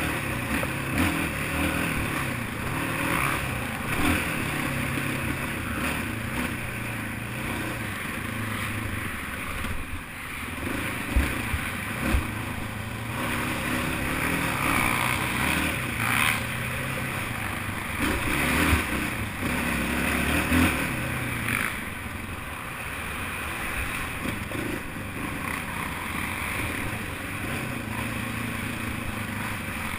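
Racing quad (ATV) engine running hard over rough ground, its pitch rising and falling as the throttle opens and closes and the gears change, with rushing wind noise and a couple of sharp knocks about eleven and twelve seconds in.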